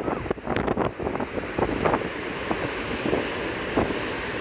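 Wind buffeting the microphone, gustiest in the first second, over the steady rushing hiss of a ferry's churning propeller wake.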